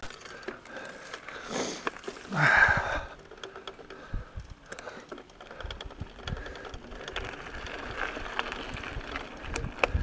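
Mountain bike rolling along a dirt trail, with a patter of small clicks and rattles from the tyres and bike over a low rumble. Two short rustling bursts come in the first three seconds.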